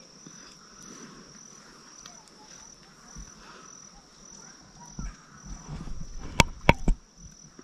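Insects chirring steadily in a high, evenly pulsing tone. About six and a half seconds in come three sharp clicks close by, the loudest sounds, over a brief low rumble.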